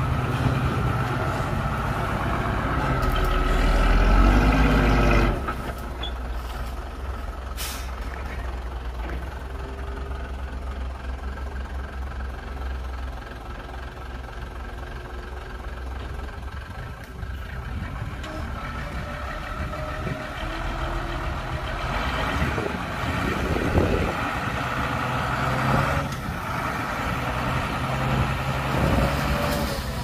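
Heavy diesel engines of a bulldozer and dump truck working: a deep rumble that rises to its loudest about four seconds in, drops sharply about five seconds in, and swells again later on. A brief hiss about eight seconds in.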